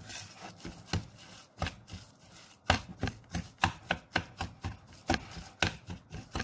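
Metal spoon stirring a crumbly butter-and-sugar mixture in a stainless steel pot: sharp clicks and scrapes of spoon against the pot. They come sparsely at first, then several a second from a little before halfway through.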